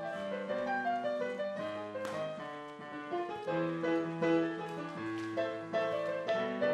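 Piano or keyboard music: a melody of short notes over held bass notes that change every second or so.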